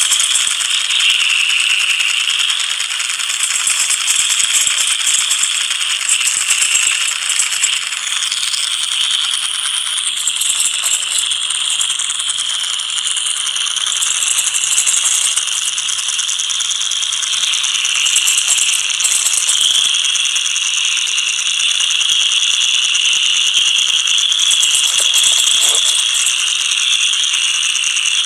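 Harsh, noisy rattling and hissing with no bass and no voice, running steadily as an instrumental stretch of a noise-style song, starting abruptly just before this point.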